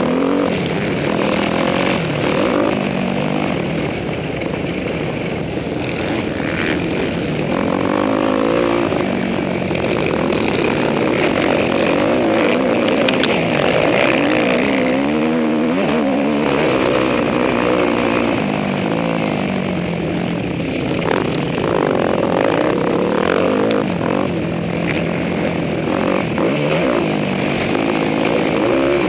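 Motocross dirt bike's engine, heard from on the bike, revving up and falling back over and over as it is ridden hard round the track.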